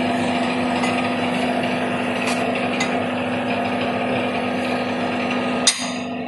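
Steady hum of workshop machinery running, a low even drone with constant noise over it. A single sharp knock sounds near the end.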